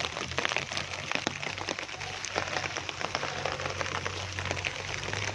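Rain laden with volcanic ash falling as mud, a dense patter of many small drops hitting nearby surfaces, over a low steady hum.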